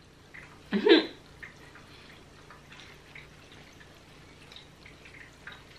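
A person chewing a mouthful of food with faint mouth clicks, after a short vocal sound about a second in.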